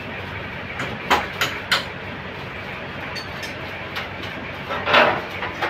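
Metal motorcycle engine parts clinking and clicking as they are handled, in a few light knocks about a second in and a louder clatter near the end, over a steady workshop background hum.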